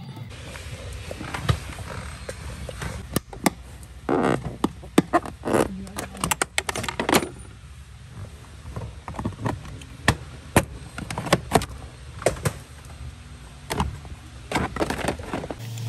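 Irregular clicks, taps and clatter of tools and trim parts being handled during car dashboard removal, over a steady low hum.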